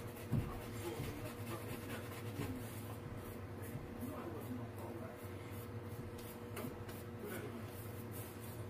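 Shaving brush bristles scrubbing lather over a stubbled face: a soft, continuous scratchy rubbing made of many quick strokes. A single low thump comes just after the start.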